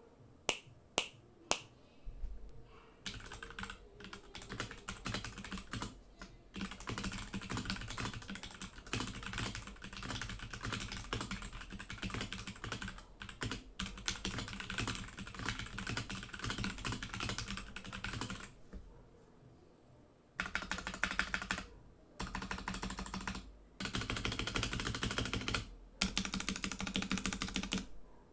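Typing on a Royal Kludge G68 mechanical keyboard with stock linear Royal Kludge Red switches, stock stabilizers and keycaps. Three single keystrokes come first, then a long stretch of steady typing. After a pause there are four short bursts of very rapid key presses.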